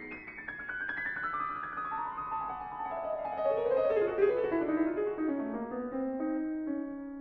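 Solo piano playing a fast, brilliant run that cascades down from the high register, slowing as it falls. About five and a half seconds in it settles on a held note that rings on and fades.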